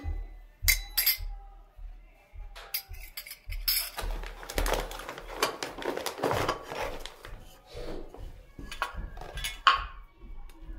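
Miniature stainless-steel toy utensils (small bowls, plates and spoons) clinking and knocking as they are handled, with a stretch of plastic packaging rustling in the middle and a sharp ringing clink near the end.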